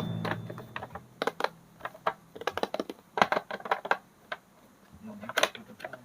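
A run of light clicks and taps at an irregular pace, with a short lull near the end; trailing music fades out in the first moment.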